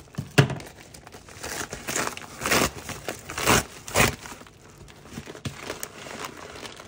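A mailed package being opened, its wrapping crinkling and tearing in irregular rustling bursts, loudest from about two to four seconds in.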